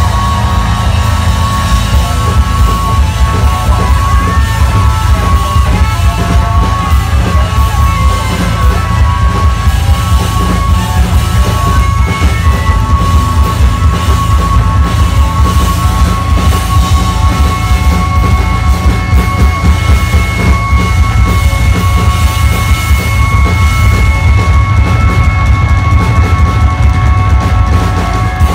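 Live rock band playing loud, with heavy bass and drums under long steady high tones. The electric guitar, set down by its amplifier, is likely feeding back. A second, higher tone joins about two-thirds of the way in.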